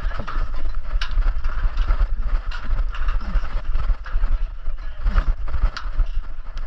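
Heavy low rumble of a body-worn action camera's microphone being jostled as a person swings hand over hand along metal monkey bars, with a few sharp knocks as hands catch the bars.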